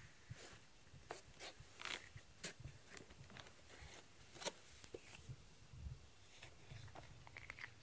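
A plastic grooming brush stroking through a cat's fur: faint, irregular scratchy brush strokes, about two a second.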